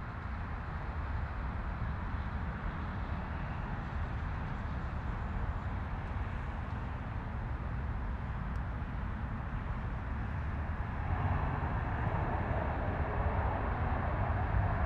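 Bombardier Dash 8 Q400 turboprop taxiing, its twin Pratt & Whitney PW150A engines and propellers running at taxi power with a steady rumble. The propeller sound grows louder about eleven seconds in as the aircraft turns toward the camera.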